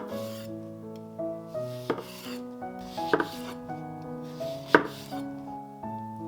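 Soft background music of sustained, changing notes, with a few sharp knocks and scrapes at irregular intervals, the loudest nearly five seconds in.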